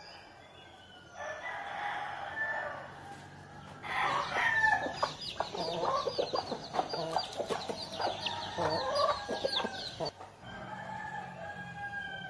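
Chickens: a rooster crowing, then several seconds of rapid, high falling peeps from a chick mixed with clucking, and further crowing near the end.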